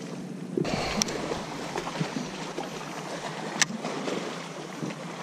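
Steady water noise around a fishing boat on a lake, starting abruptly just over half a second in, with two sharp clicks, about a second in and again past the middle.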